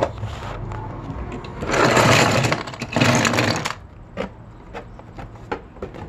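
Cardboard box and packaging being handled and moved about: bursts of rustling and scraping, then a few light clicks and taps.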